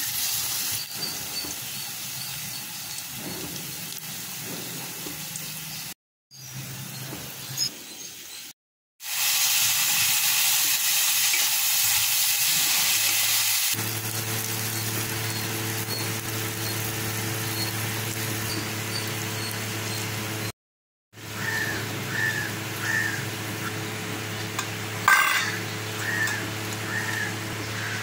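Chopped onions, and later tomatoes, sizzling in hot oil in an aluminium pressure cooker as they are stirred. The sizzle is heard in several short stretches broken by brief silences. A steady low hum runs under it in the middle part.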